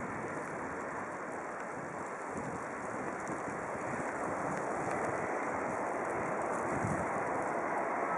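Steady rushing noise of a Class 143 electric locomotive rolling slowly in, mixed with wind on the microphone, growing slightly louder about halfway through.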